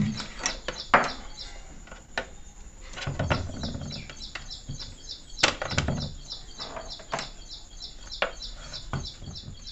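Clicks, knocks and rubbing from a mixer grinder's plastic body and its old power cable being handled and pulled out; the sharpest knock comes about a second in. Behind it, a bird chirps over and over, several short high chirps a second.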